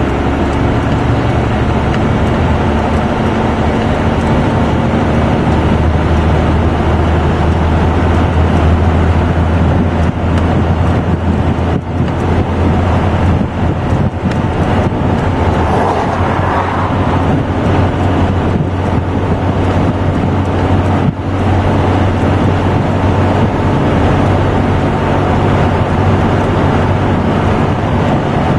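Inside the cab of a Dodge 2500 pickup with a 12-valve Cummins 5.9 L inline-six turbodiesel, the engine drones steadily under load while towing a heavy bulldozer on the highway, with tyre and road noise. The level dips briefly a few times partway through.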